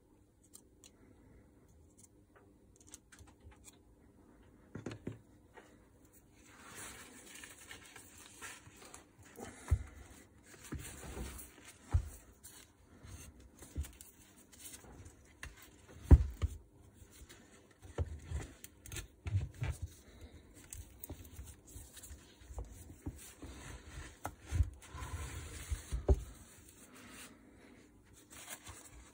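Gloved hands handling and fitting electric-motor parts: rustling, scraping and scattered knocks of the metal stator housing against the motor body and the bench. It is nearly quiet for the first few seconds, and the loudest knock comes about halfway through.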